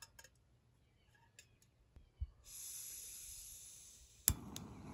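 Backpacking gas canister stove being lit: a high steady hiss of gas from the opened valve starts about halfway in. Near the end comes a single sharp click of the piezo igniter, and the burner catches with a steady rushing flame.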